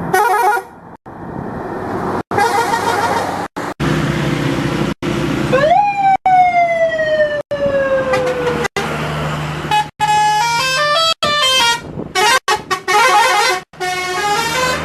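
Bus 'telolet' musical air horn playing its tooting melodies in short clips broken by abrupt cuts. One long note jumps up and slides slowly down, and near the end come quick runs of notes stepping up and down, over a steady low engine hum.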